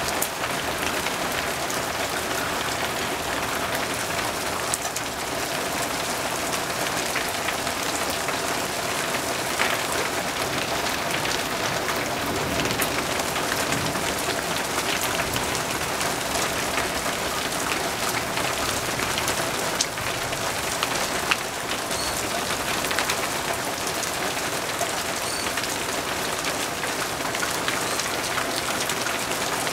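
Steady rain falling, with many scattered taps of single drops landing close by.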